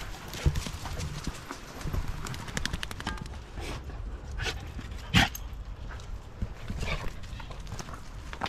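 A dog barking, about four single sharp barks a second or so apart, the loudest about five seconds in, over footsteps crunching on a gravel path.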